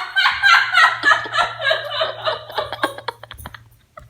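A person laughing in a run of short 'ha' bursts, about three a second, that fade away over about three seconds.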